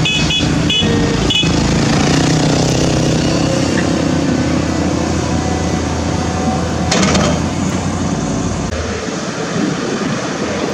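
CAT 320D hydraulic excavator's six-cylinder diesel running steadily under load as it digs into a bank of earth and rock. A few short high squeaks come in the first second and a half, and a short loud crunch of the bucket biting into the soil and stone comes about seven seconds in.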